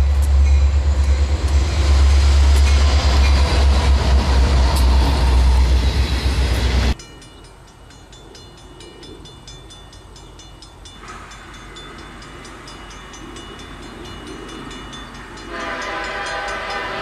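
A diesel freight train running close by, with a heavy low engine rumble and rail noise, cuts off abruptly about seven seconds in. The sound then changes to a quieter distant scene in which an approaching diesel locomotive's air horn, led by an Illinois Central SD70, sounds faintly and then loudly near the end.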